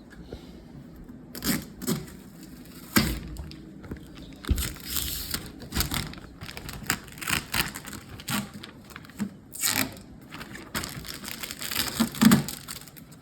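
Cardboard box and packing material of a 3D printer being handled and opened: irregular rustling and scraping noises with scattered knocks, the sharpest about three and four and a half seconds in.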